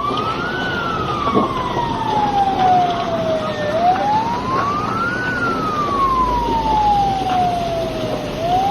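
Emergency vehicle siren wailing, with street noise beneath it. Twice its pitch rises over a second or so, then falls slowly for about three seconds.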